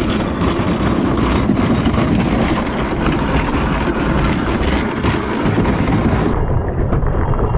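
Fibreglass dinghy hull dragged over a rough stone slipway: a loud, continuous grinding rumble.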